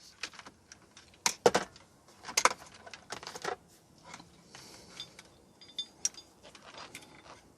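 Irregular light clicks and rattles of small hard parts being handled, such as a wiring connector and meter probes, loudest about one and a half seconds in.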